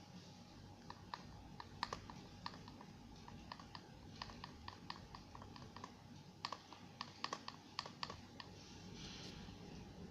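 Light clicks and taps, a few a second for several seconds, as glitter is tapped out of its small plastic container.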